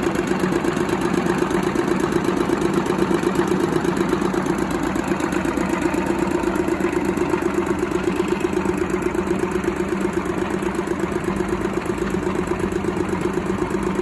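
Güldner Lanova GL7 diesel engine of a 1940s tractor idling steadily, with an even, rapid exhaust beat.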